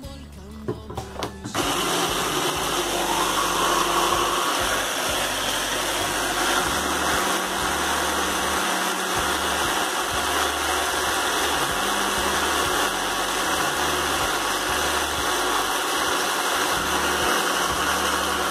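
Hand blender's chopper attachment running steadily, processing grated coconut with boiling water into a paste. The motor starts about a second and a half in and keeps an even pitch and level throughout.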